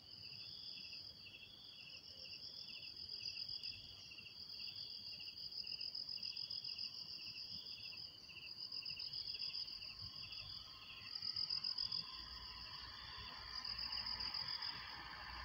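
An insect chorus of two kinds of insects: a high, continuous trill over a lower chirp that pulses in short repeated phrases. Near the end, a low rumble and hiss rise underneath.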